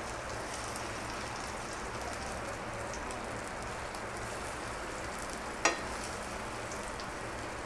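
Shami kababs shallow-frying in a little oil in a nonstick pan: a steady sizzle. A metal spatula gives one sharp tap against the pan about two-thirds of the way through.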